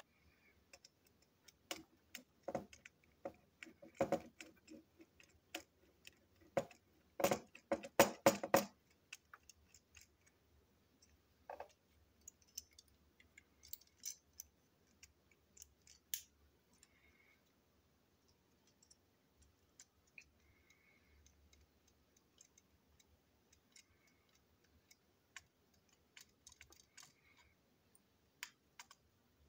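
Small plastic and metal clicks and rattles from a toy train engine's chassis, wheels and coupling rods being handled while it is taken apart. A cluster of louder clicks comes about seven to eight seconds in, then sparse, faint ticks.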